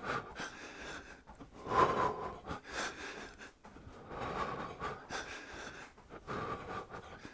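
A man breathing in and out hard while doing jumping jacks, a breath about every second.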